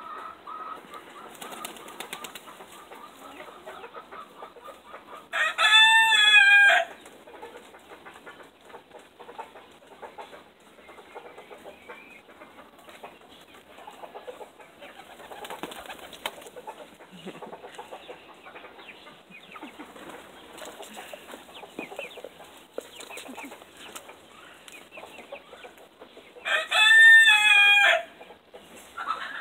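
A rooster crows twice, each crow about a second and a half long, once about six seconds in and again near the end. Between the crows there are quieter bird calls and the wing flaps of pigeons.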